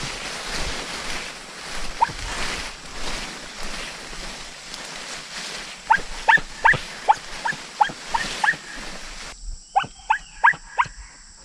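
Rustling and wind noise from moving through the field. About halfway through comes a rapid string of around a dozen short, high yelps from hunting dogs in pursuit of quarry.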